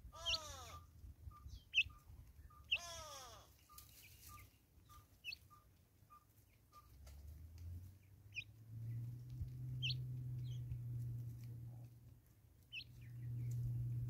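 Wild birds calling in woodland: scattered short high chirps, a quick run of short evenly spaced notes, and two loud calls that fall in pitch early on. A low steady hum comes in about two-thirds of the way through.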